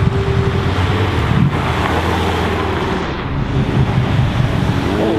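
Car engine under hard acceleration on the street, with wind buffeting the microphone.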